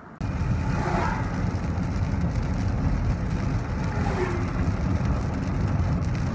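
Inside a vehicle driving through heavy tropical-storm rain: a steady low road-and-engine rumble with rain hitting the windshield, and the windshield wiper sweeping twice, about three seconds apart.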